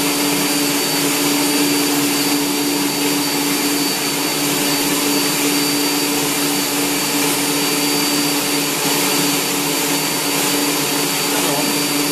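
Electric stand mixer running at a steady speed, mixing biscuit dough: an even motor hum with a faint high whine over it.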